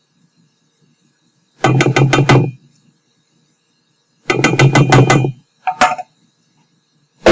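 Stainless-steel bowl rapped with a spatula in two quick runs of knocks, about five or six a second, each knock ringing with a metallic tone, then single knocks near the end: the last melted chocolate being knocked off into the mixing bowl.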